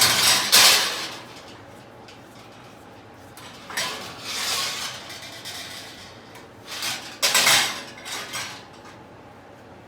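Metal kitchenware scraping and clattering in three bursts of about a second to a second and a half each, with sharp clinks in them: a pan and cooking utensils being worked to free the pizza.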